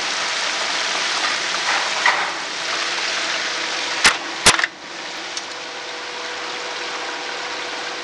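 Steady hissing kitchen noise at a deep fryer, with two sharp metallic clacks about four seconds in as tongs handle the fried chicken at the wire basket; the hiss is lower after the clacks.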